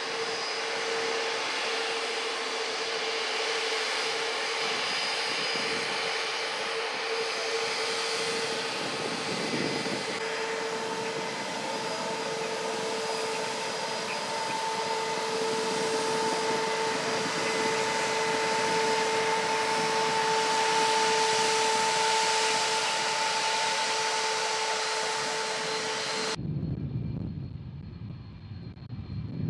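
Jet airliner engines running with a steady whine over a rushing noise, growing louder about two-thirds of the way through. Near the end it cuts off abruptly, giving way to a quieter low rumble.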